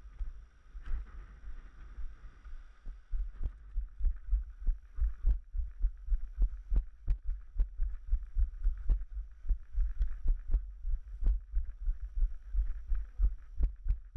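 Low, regular thuds of a trail runner's footfalls, picked up through the camera the runner is carrying, about two to three a second and steadier after about four seconds in.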